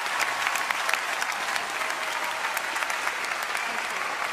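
A large audience applauding: dense, steady clapping from many hands at the end of a speech.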